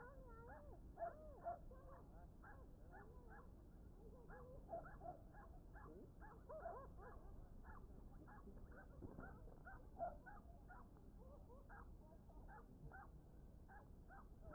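Faint animal calls: a quick run of short repeated calls, several a second, with occasional gliding cries among them.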